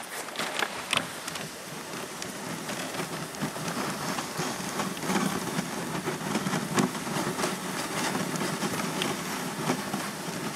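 Dog sled running over snow: a steady hiss and scrape of the runners, with scattered clicks and knocks.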